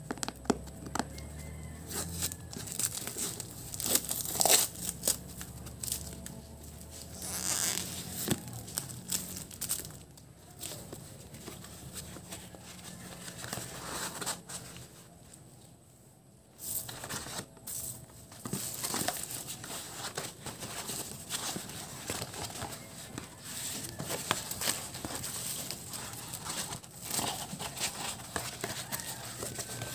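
Thick paper wrapping of a large triangular firecracker being torn open and crumpled by hand: irregular rustling and crackling, with a brief lull about halfway through.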